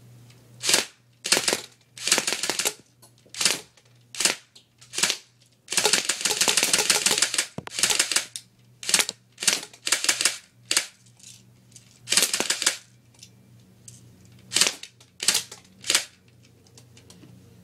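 Battery-powered electric airsoft Mini-Uzi firing in rapid bursts, about seventeen short ones, the longest about two seconds near the middle, some little more than a single shot.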